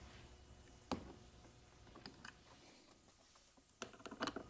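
Mostly quiet, with faint, sparse clicks of a screwdriver and the plastic wind deflector of a Honda Gold Wing being worked loose: one sharper click about a second in, two soft ticks around two seconds, and a quick run of small clicks near the end.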